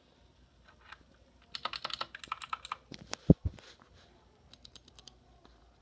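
A lightly lubed mechanical keyboard switch being pressed over and over by hand: a quick run of clicks and clacks, then one heavier knock, then a few light clicks near the end.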